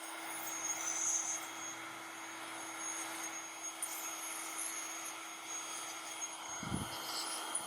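Air blower blowing a steady rush of air over freshly washed RC cars to drive the water off, with a steady hum underneath and a brief low bump near the end.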